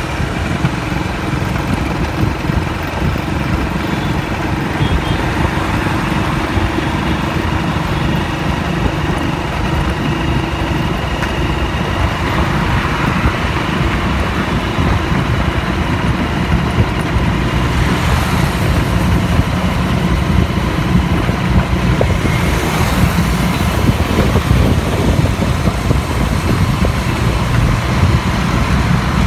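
Steady road traffic noise from motorcycles, scooters and cars on a flyover, heard from among the moving traffic, with a constant low rumble underneath and a couple of louder swells as vehicles pass.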